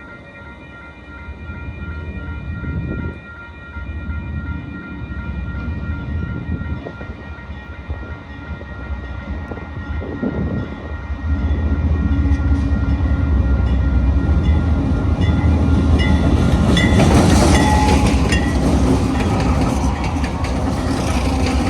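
Train approaching and passing: a deep rumble with wheels running on the rails, growing louder and becoming much louder about halfway through.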